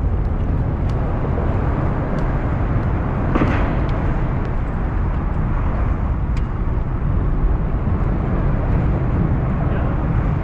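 Steady rumble of a fishing boat under way: the boat's engine running, mixed with wind and water noise. A few faint ticks and one brief brighter rush about three and a half seconds in.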